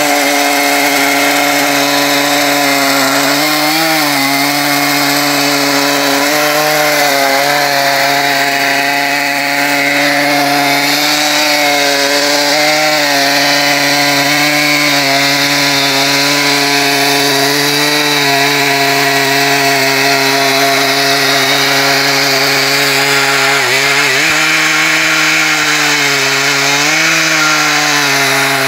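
Stihl chainsaw in a chainsaw mill running at full throttle as it rips lengthwise through an ash log, the engine held in a steady cut. Its pitch dips briefly a few times as the load in the cut changes.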